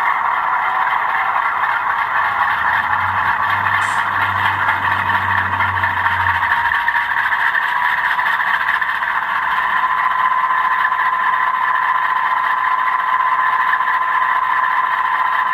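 Sound decoder of an HO-scale C39-8 model locomotive playing its diesel engine running after the startup sequence, heard through the model's small speaker as a steady, thin engine drone with little bass. A low rumble joins in about three seconds in and drops out a few seconds later.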